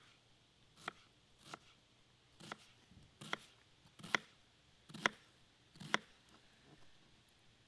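Kitchen knife slicing an onion on a plastic cutting board: about seven separate cuts, each ending in a short knock of the blade on the board, roughly one every second.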